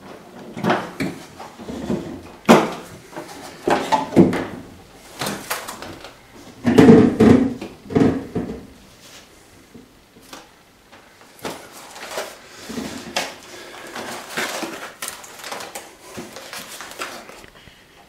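Hard plastic fridge evaporator cover being pulled out of its compartment and handled: irregular knocks, scrapes and rattles of plastic against plastic, loudest about seven seconds in.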